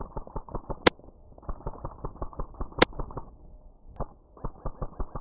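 Airsoft electric rifle firing in short bursts of slow, even shots, about five or six a second, which fits a weak battery. Two sharp, louder cracks stand out, about a second in and near three seconds.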